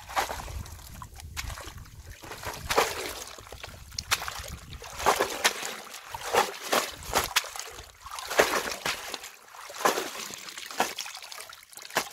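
A woven bamboo basket full of crabs being dunked and shaken in shallow ditch water to rinse them, with repeated sloshing splashes about once a second and water trickling out through the weave.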